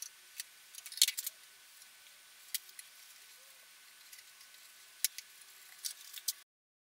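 Masking tape being pulled off the roll and wrapped onto a guitar neck: a few short, sharp crackles spread through, over faint hiss, cutting off suddenly just before the end.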